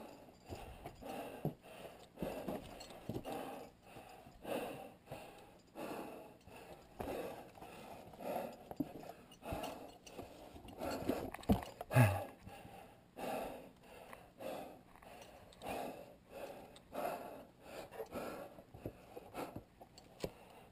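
A climber breathing hard close to the microphone, one heavy breath about every second and a bit in a steady rhythm, with a single sharp knock about twelve seconds in, the loudest sound.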